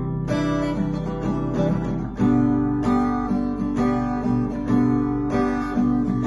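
Instrumental music on strummed acoustic guitar, with chords changing every second or so.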